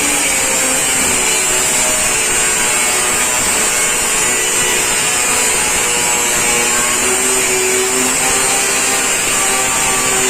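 A power tool cutting steel, running steadily with a high-pitched whine.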